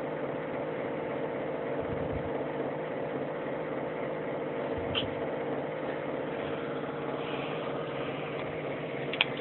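A baby hiccuping twice, short sharp sounds about halfway through and near the end, the second the louder, over a steady background hum.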